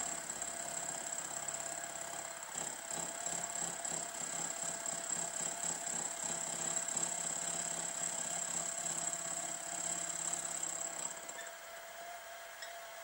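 Milling machine running with an end mill taking a light skimming cut across the flange of a model traction engine's cylinder block casting: a steady motor whine with a rhythmic cutting chatter. The cutting noise falls away about 11 seconds in while the motor keeps running.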